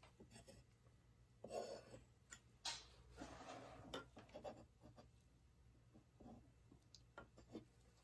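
Mostly quiet, with faint rubbing and a few light clicks from hands handling things. The rubbing is clearest about a second and a half in and again around three seconds in.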